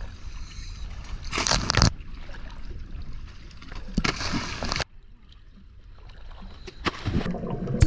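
Scuba divers in full gear jumping feet-first off a dive boat's stern into the sea, a loud splash every two to three seconds, with water sloshing at the surface between entries.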